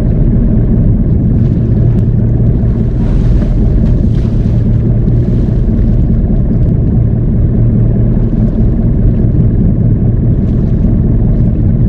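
Wooden fishing boat's engine running steadily with an even low hum, with wind noise on the microphone and the sea around the hull.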